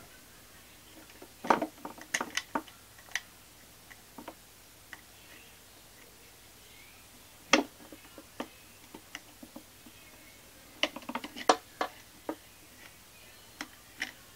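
Scattered clicks and taps of a screwdriver and plastic parts on a Vauxhall Zafira B's rear middle seatbelt retractor mechanism being worked by hand, in small irregular clusters.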